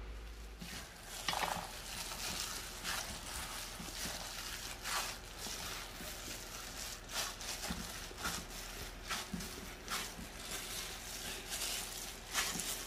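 Raw minced lamb, mixed with spices and egg, being kneaded by a plastic-gloved hand in a steel bowl: a string of irregular soft squelches and rustles.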